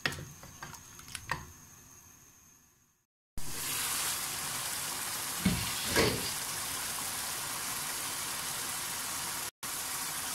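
Mutton and potato curry frying and bubbling in a wok with a steady sizzle. A few light spatula clicks against the pan come first, and two soft knocks come near the middle.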